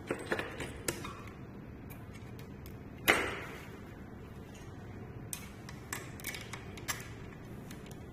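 Metal tools and parts clinking and knocking while the scooter's steering-pole bearings are worked on: a few light taps, then one loud metallic strike with a short ring about three seconds in, then scattered lighter clicks.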